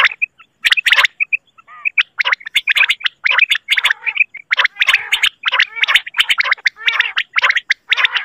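Common quail (batair) calls from a hunting lure recording: quick, chattering bursts of short notes, repeating with brief gaps.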